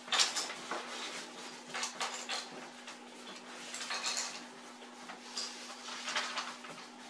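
Short bursts of rustling and light clattering from kitchen things being handled, about four times, over a faint steady hum.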